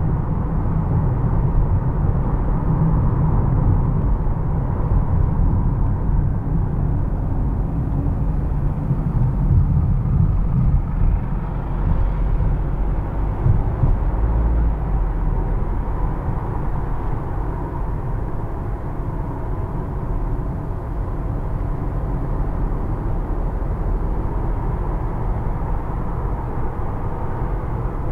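A car driving through city streets, heard from the moving car: a steady low rumble of road and engine noise.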